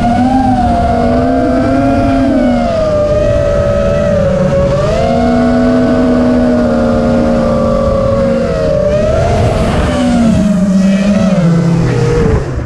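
FPV quadcopter's brushless motors and propellers whining, the pitch rising and falling with the throttle. Near the end the pitch drops sharply as the throttle is cut.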